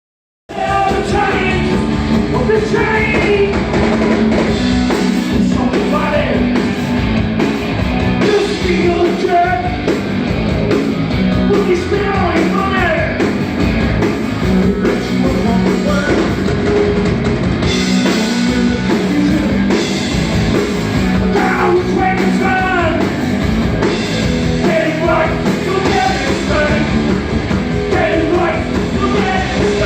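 Rock band playing a song with a singer, loud and steady, starting about half a second in.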